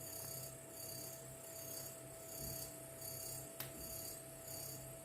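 Faint steady hum with a soft hiss that swells and fades a little faster than once a second, and one sharp click about three and a half seconds in.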